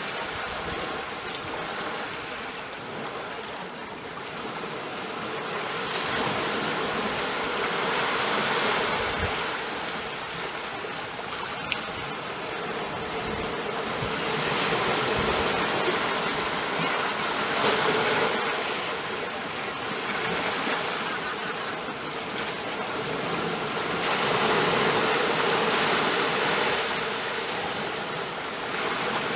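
Sea waves washing in: a steady rush of water that swells and eases every few seconds.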